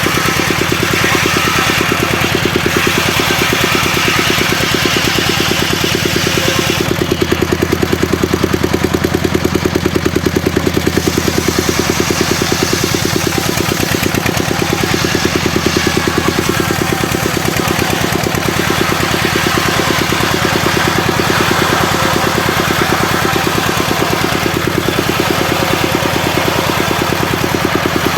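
Engine driving a homemade circular sawmill, running steadily with a fast, even chug; it gets a little louder for a few seconds about a quarter of the way in.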